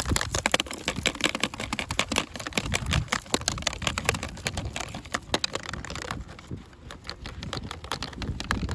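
Plastic toy packaging crinkling and crackling in the hands during unboxing, a fast run of sharp clicks that thins out after about six seconds.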